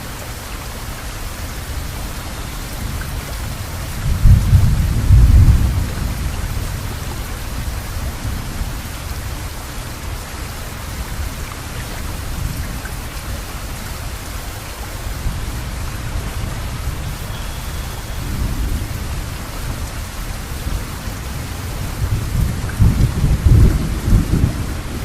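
Steady heavy rain with thunder rolling over it: a loud low rumble about four seconds in, a fainter one later, and another building near the end.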